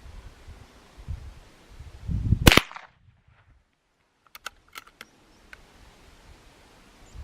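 A single gunshot from a Savage bolt-action .22 LR rifle firing a CCI Mini-Mag round, about two and a half seconds in, with a short ringing tail. A few light clicks follow a couple of seconds later.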